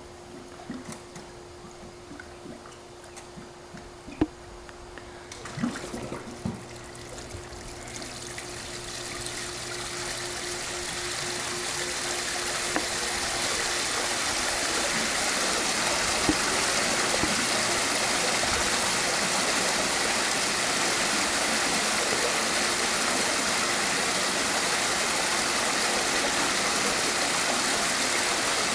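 Swimming pool waterfall starting up: water begins splashing about five seconds in, builds over the next several seconds, then pours steadily into the pool. A faint steady hum and a few knocks come before the water starts.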